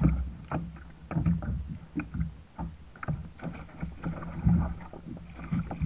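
Water slapping and splashing against a plastic kayak hull, with irregular knocks and splashes as a bluefish is let go over the side.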